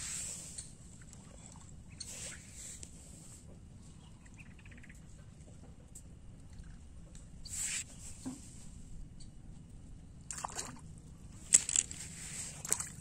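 Scattered faint rustles over a steady low hum, then about ten seconds in a cluster of sharp splashes and knocks, the loudest about a second and a half in: a hooked fish thrashing at the water surface as it is brought in on the rod.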